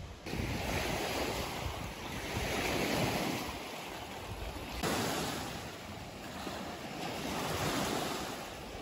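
Wind-driven lake waves breaking and washing onto a pebbly shore, swelling and easing every couple of seconds, with wind buffeting the microphone.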